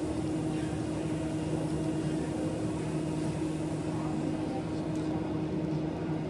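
Steady, even hum of running kitchen equipment, with a low drone held at one pitch.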